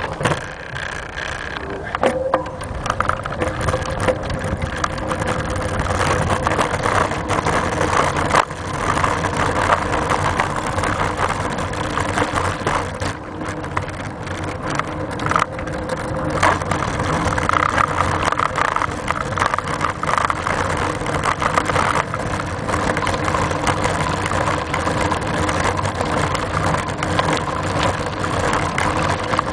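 Steady riding noise from a bike-mounted camera: rumble of the tyres and mount vibration, with occasional sharp knocks from bumps.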